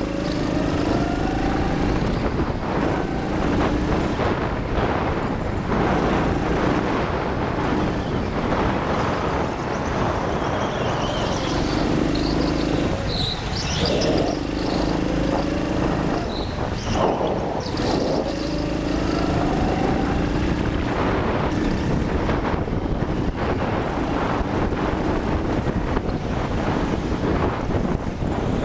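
Go-kart motor running hard, its pitch repeatedly rising and falling with throttle through the corners, over a steady rush of wind and tyre noise.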